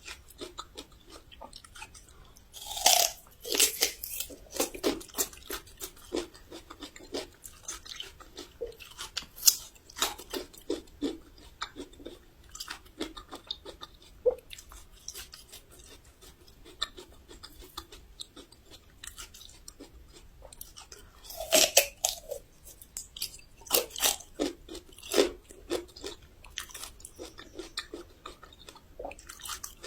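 Raw Shandong yellow ginger root being bitten and chewed with a crisp crunching sound. Two loud bites come about three seconds in and again at about 22 seconds, each followed by a run of crunchy chews.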